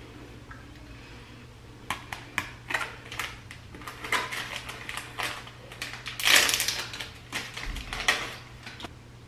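A small paper packet crinkling and being torn open in the hands. A dense run of sharp crackles starts about two seconds in and is loudest past the middle. A low steady hum runs underneath.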